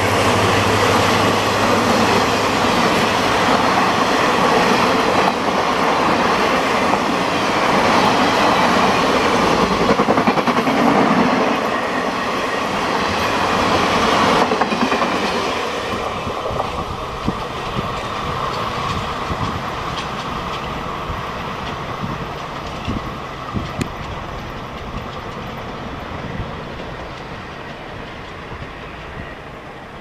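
Express train coaches rushing past at speed, their wheels clattering over the rails. About halfway through, the noise drops sharply, then fades steadily as the train draws away into the distance.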